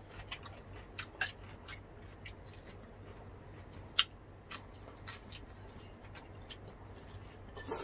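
Eating sounds close to the microphone: scattered short clicks and smacks of chewing and biting food, at irregular times, with a sharper one about four seconds in.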